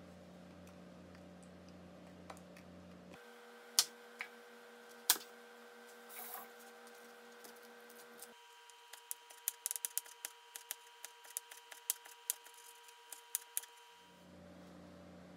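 Chef's knife slicing a jalapeño into thin strips: quick, irregular taps of the blade against a wooden cutting board, about four or five a second, in the second half, after a few sharper single knocks earlier on.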